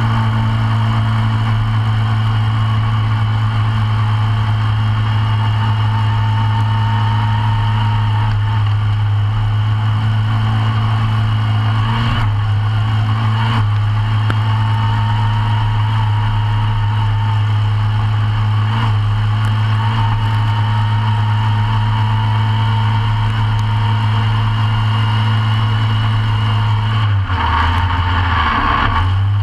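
Briggs & Stratton engine of a short-course off-road racing kart running at a steady pitch, heard from inside the cockpit, with a few sharp knocks from the chassis partway through.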